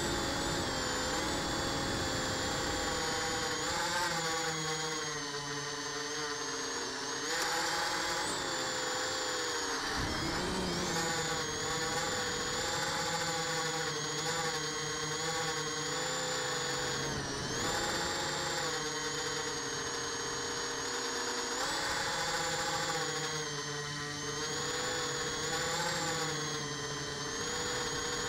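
Multirotor drone's electric motors and propellers whining, the pitch drifting up and down with the throttle, with a couple of sharp drops and recoveries.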